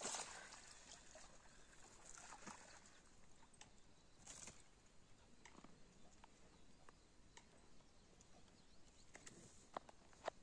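Near silence: faint outdoor background with a brief rustle at the start and a few scattered faint clicks, the sharpest near the end.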